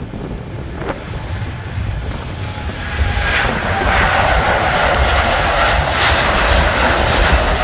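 Jet engines of a KLM Boeing 787 at take-off thrust during its take-off roll: a steady rumble with a whine that grows louder about three seconds in as the airliner passes.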